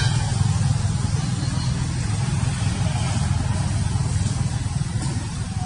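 A steady low rumble with a faint hiss over it, unchanging throughout.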